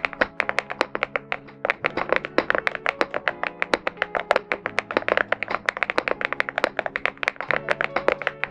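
MXRSKEY Juicy75 aluminium-case 75% mechanical keyboard with an FR4 plate being typed on quickly: a dense, uneven run of sharp key clacks, several a second, over background music.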